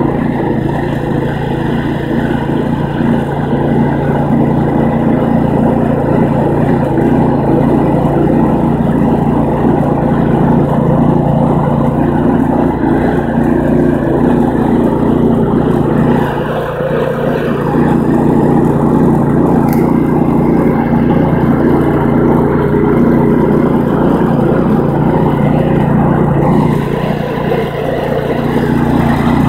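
Engine of a riding garden tractor running steadily under way, with a brief drop in level about halfway through and again near the end.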